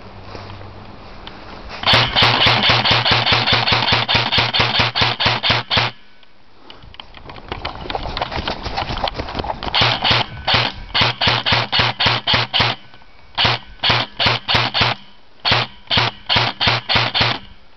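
Airsoft gun firing: a rapid full-auto burst of about four seconds, then after a pause several short strings of rapid shots, each shot a sharp crack, with a low motor hum under the firing.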